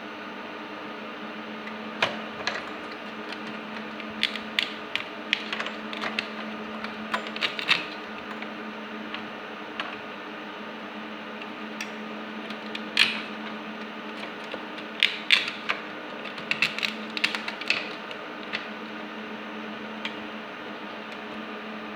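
Scattered clicks, ticks and light clatter of small hardware being handled, in clusters, over a steady electrical hum.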